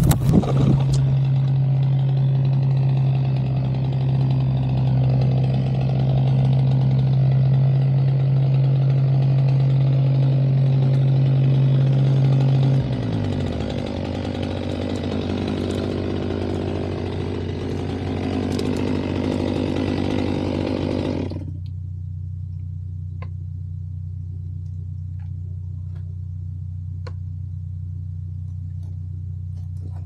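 Stihl MS 500i two-stroke chainsaw running hard through a felling cut, its engine note dropping in pitch about halfway through. The cutting stops suddenly about two-thirds of the way in, and a low steady engine hum carries on.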